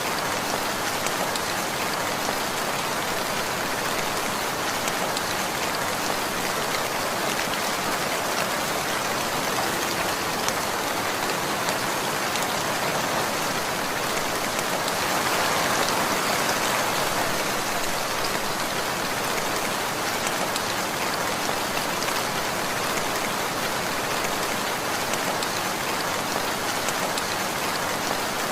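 Steady rainfall: a dense, even hiss of falling rain, growing a little louder about halfway through.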